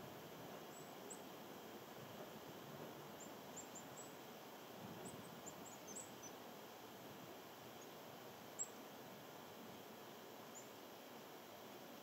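Faint, very high, short chirps of small birds, scattered and bunched around the middle, over a steady outdoor hiss. One sharp click sounds about two-thirds of the way through.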